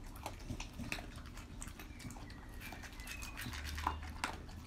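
Staffordshire bull terrier eating from a stainless steel bowl: irregular clicks and clinks of food and teeth against the metal, with wet chewing.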